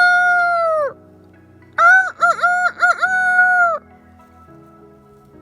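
Rooster crowing cock-a-doodle-doo twice, the first crow ending about a second in and the second lasting about two seconds, each with a long held final note that drops at the end. It is the wake-up call marking daybreak.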